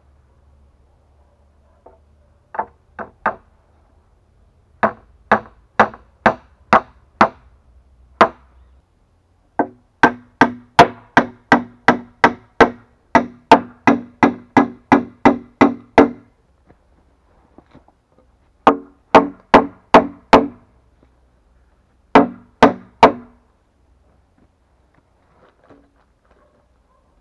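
Hammer driving nails into wooden planks, blow after blow, each with a short ringing tone. The blows come in groups: a few at first, then a long run of about three a second, then shorter runs of four and three.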